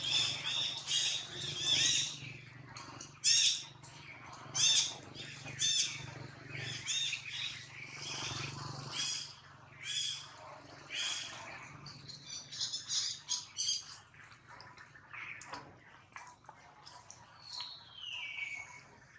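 Repeated high-pitched squawking animal calls: short arching cries about once or twice a second, thinning out in the second half, with one long falling call near the end.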